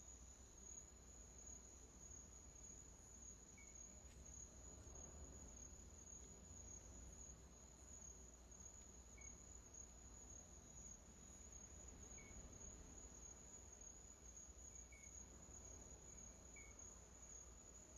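Near silence with a faint, steady high-pitched insect trill, with a few very faint short chirps scattered through it.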